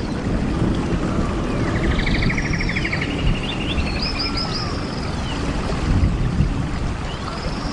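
Bird calls over a steady low rumble: fast trills and high, falling chirps that come back every few seconds.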